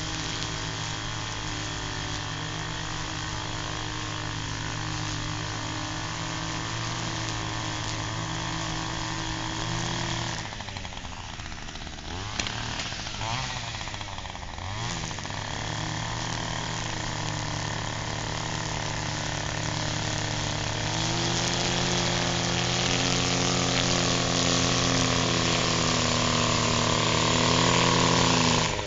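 Echo two-stroke string trimmer running at high throttle while edging a driveway. Its pitch dips and picks back up about a third of the way in. It grows louder as it comes closer in the second half.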